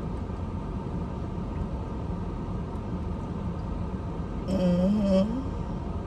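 Steady low rumble inside a parked car's cabin, typical of the car idling. About four and a half seconds in there is a short hummed vocal sound with a wavering pitch.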